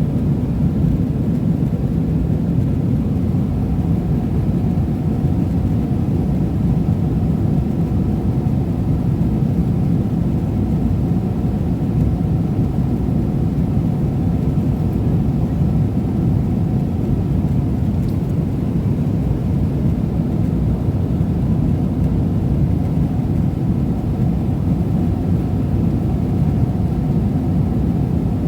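Steady cabin noise inside a Boeing 777-300ER airliner in flight: an even, loud low roar of airflow and engines with a faint steady hum above it.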